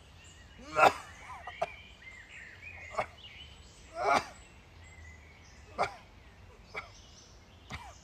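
Birds chirping in woodland, broken by six short, loud calls spaced a second or two apart; the first, just under a second in, is the loudest.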